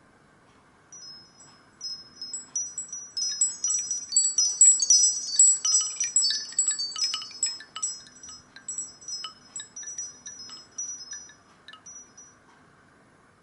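A Nokia Asha 302 ringtone of wind-chime tinkling: many quick, high, ringing chime notes that start about a second in, crowd together in the middle and thin out before stopping near the end.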